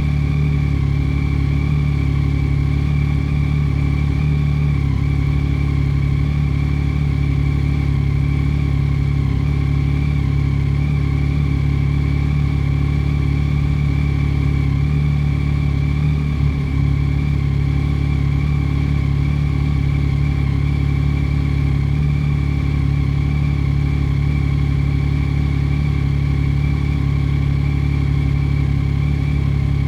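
2022 Yamaha Tracer 9 GT's 890 cc inline three-cylinder engine idling steadily while warming up after a cold start, through an Akrapovič full exhaust with no baffle.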